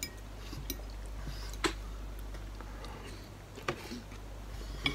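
A few light, separate clicks of cutlery against a bowl during eating, the sharpest about one and a half seconds in and another near four seconds, over a faint low hum.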